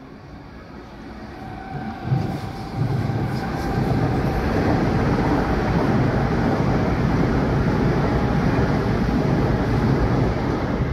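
Passenger train passing close beneath, its rumble of wheels on rails growing louder over the first few seconds, then holding steady and loud as the carriages go by.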